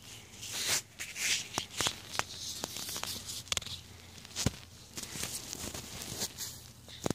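Handling noise from a phone held up close: irregular rustling and rubbing with scattered sharp clicks.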